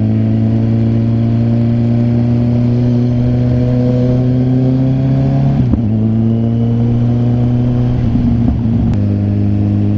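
Kawasaki Z900's inline-four engine running under steady throttle while riding, its note rising slowly, then briefly breaking about five and a half seconds in before settling at a steady pitch.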